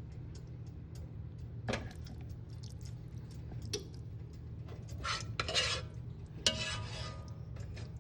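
Kitchen utensils clinking and scraping against pots and dishes: a few separate knocks, then a longer scraping stretch about five seconds in and a sharp knock just after, over a steady low hum.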